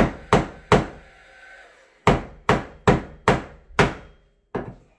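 Hammer striking nail heads in a timber block inside a wall cavity. Three quick blows, a pause of about a second, then six more. The protruding nail heads are being flattened so the drywall sheet can sit flat over them.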